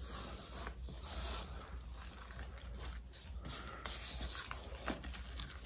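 Silicone spatula stirring flour and water in a bowl, a faint, irregular scraping and rubbing as a wet no-knead bread dough is mixed together.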